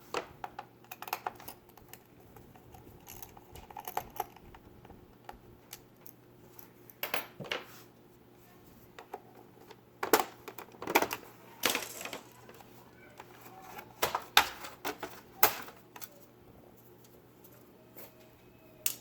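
Scattered sharp clicks and small clatters of hand tools, screws and the plastic bottom access plate of an ASUS G75VW laptop as the plate is taken off to reach the hard drive bays. The clicks come in irregular bunches, with the loudest groups in the second half.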